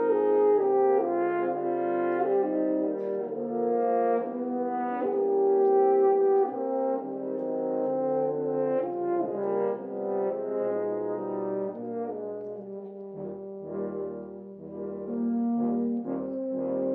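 Instrumental music in performance: a melody in held notes, changing about once a second over other sustained notes, with deeper bass notes joining about thirteen seconds in.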